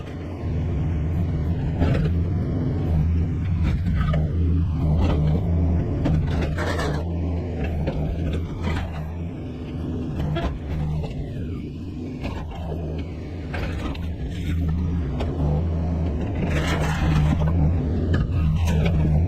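Excavator's diesel engine running steadily under load, with repeated clanks and scrapes from the bucket and tracks working.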